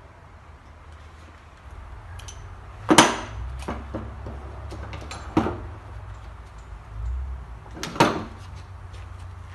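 Four sharp metallic knocks and clanks from tools and parts being handled during hub reassembly, the first and last the loudest, with a low steady hum underneath.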